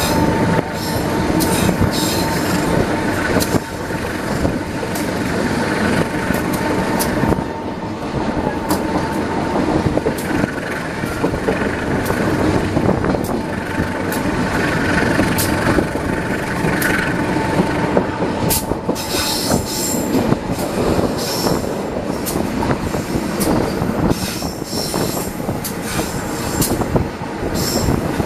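Train running on the rails, with a dense, steady rolling noise and repeated sharp clicks of the wheels over the track.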